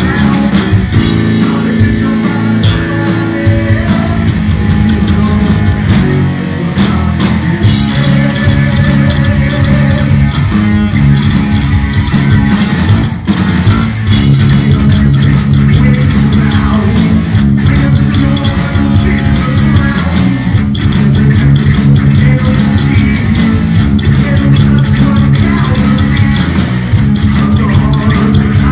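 Heavy metal band playing live and loud: a distorted Flying V electric guitar over bass and drums.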